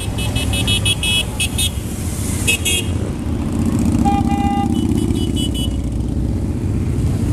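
Group of motorcycles riding past in procession, their engines rumbling, the rumble swelling as a big touring motorcycle passes close about four seconds in. A run of short, high toots comes in the first three seconds, and a single horn honk follows about four seconds in.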